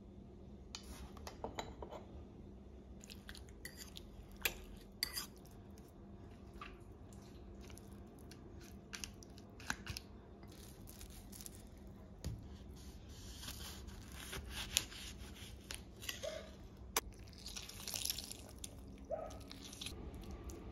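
Quiet food-prep handling sounds: scattered light clicks and taps against a ceramic dish, with soft wet dabbing as a silicone brush spreads an oily herb-and-vegetable marinade over raw chicken.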